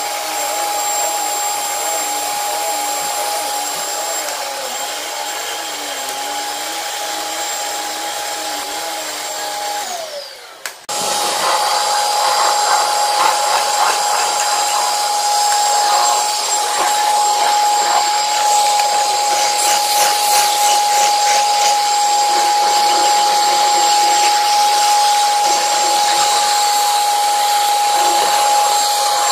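Commercial vacuum cleaner running steadily with a high motor whine while vacuuming carpet. About a third of the way through its pitch drops and it winds down, then it comes back at full speed, a little louder than before.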